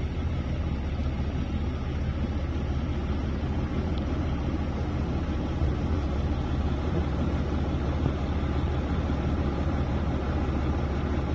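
Steady low rumble of a car driving, with road and wind noise as heard from inside the cabin.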